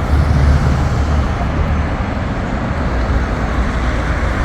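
Road traffic noise: a low engine hum under steady tyre and street noise, easing a little midway and building again.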